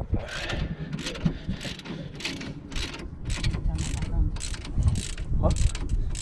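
Socket ratchet wrench being worked back and forth on a brake caliper bolt. The pawl clicks in short bursts about three times a second as the bolt is run in.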